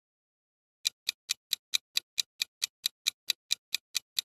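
Countdown timer sound effect ticking evenly, about four to five ticks a second, starting about a second in.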